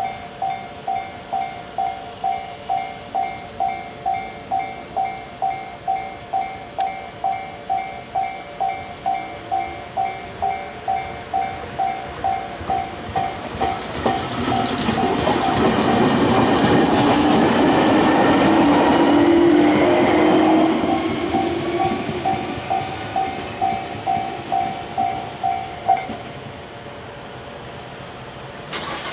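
Japanese level-crossing warning bell dinging about twice a second while a train runs past over the crossing, loudest about halfway through; the bell stops near the end once the train has cleared.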